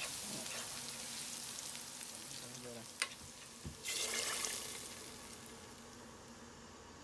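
Minced garlic sizzling in hot oil in a frying pan as it is stirred, the sizzle slowly fading. About three seconds in there is a sharp knock, then a brief louder hiss as the hot oil and garlic are poured into a pot of broth.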